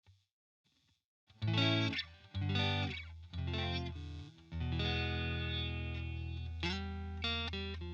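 Partscaster electric guitar played through a software amp modeler, strumming a series of chords from about a second in. One chord is left to ring out through the middle, and quicker chords follow near the end.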